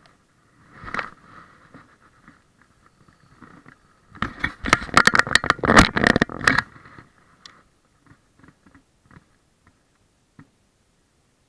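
Scraping and rustling very close to a body-worn camera's microphone: a brief scrape about a second in, then a dense, loud run of rapid clicks and scrapes lasting about two and a half seconds in the middle, and a few faint ticks after.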